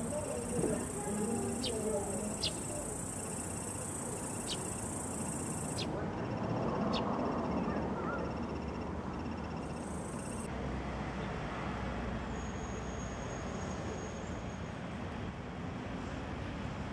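Steady outdoor traffic noise from a city street, with a high-pitched hiss through the first six seconds and a few brief sharp ticks.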